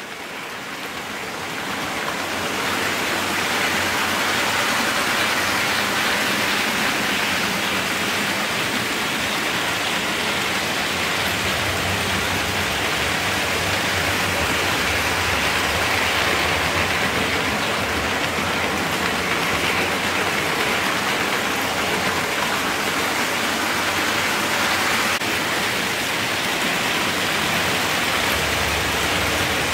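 OO gauge Class 66 model diesel locomotive running on its track: a steady rolling rush of wheels on rail with a low motor hum. It builds up over the first few seconds and then holds level.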